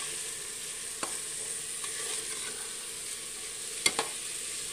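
Washed lentils and tomato masala sizzling in oil in an aluminium pressure cooker while a metal spatula stirs and scrapes them: the dal being briefly roasted before water goes in. A few sharp clinks of the spatula against the pot, about a second in and two close together near the end, the loudest sounds.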